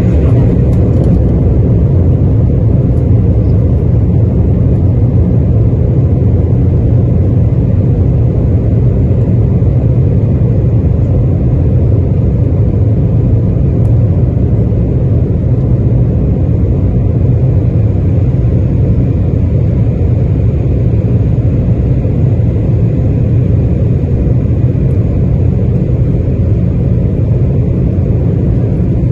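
Jet airliner's engines running at takeoff thrust during the takeoff roll, heard from inside the passenger cabin: a loud, steady low rumble.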